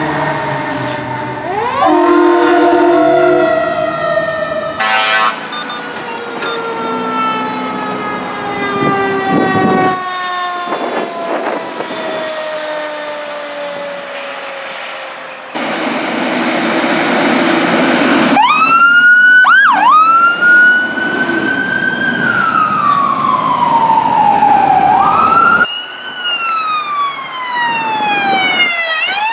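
Emergency vehicle sirens on responding fire apparatus. First a siren winds slowly down in a long falling tone. After a loud rush of noise about sixteen seconds in, sirens rise and fall in a wail with quick yelping sweeps.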